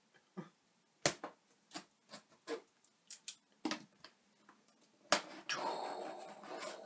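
Cardboard box being opened by hand: a string of small clicks and taps as fingers work at the lid's edge and tabs. About five seconds in comes a sharp snap, then a second or so of scraping, rustling cardboard as the lid comes free.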